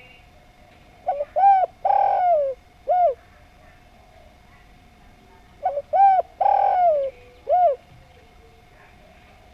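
Spotted dove (derkuku) cooing twice, the phrases about four and a half seconds apart. Each phrase is a few short hooting notes with a longer, rougher note near the middle.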